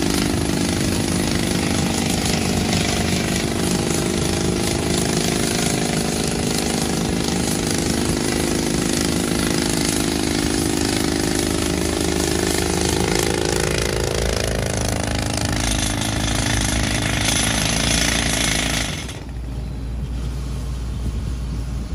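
Ingersoll Rand crawler-mounted pneumatic rock drill hammering into rock, a steady dense rattle with hissing air. About 19 seconds in the hammering stops and a lower rumble carries on.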